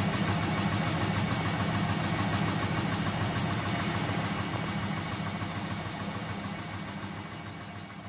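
Front-loading washing machine in its spin cycle: a steady low hum from the motor and turning drum that fades away over the last few seconds. The machine spins the water out smoothly, working normally again after its repair.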